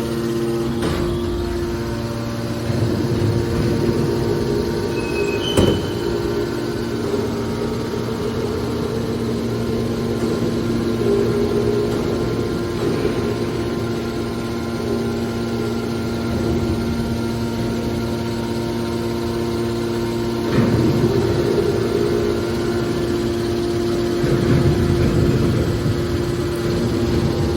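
Hydraulic metal baler running: a steady hum from its motor and hydraulic pump, with a sharp clank about six seconds in, a knock about twenty seconds in, and stretches of rougher noise as it works.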